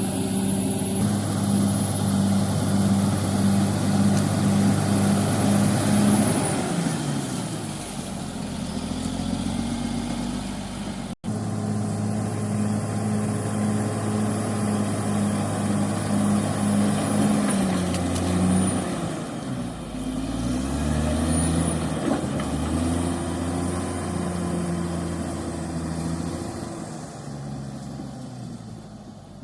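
CAT D6R XL bulldozer's diesel engine working at high revs with a thin high whine over it. The revs drop about six seconds in, hold high again after a cut, then rise and fall repeatedly over the last ten seconds as the machine is worked.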